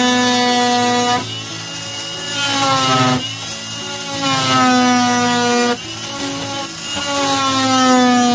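Power tool cutting into a car's window crank, its motor whining in four loud stretches of about a second and a half to two seconds, the pitch sagging slightly in each, with quieter grinding between.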